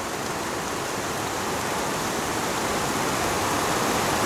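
Steady rushing of a small waterfall cascading over several rock layers, growing slowly louder.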